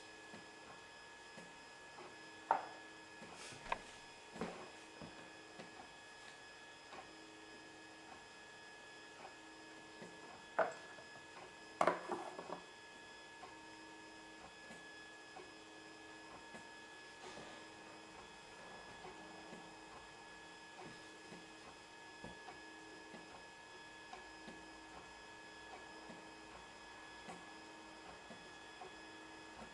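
FDM 3D printer running mid-print, a quiet steady hum of several tones from its motors and hotend cooling fan. About five sharp clicks come in the first half, the loudest a little after ten seconds in.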